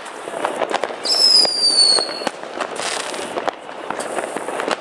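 Ground-fired fireworks going off with a steady crackle of pops. About a second in, a loud whistle sounds for just over a second, falling slightly in pitch.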